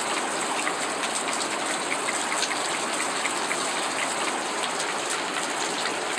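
Water falling and splashing steadily, a dense patter of drops on wet rock.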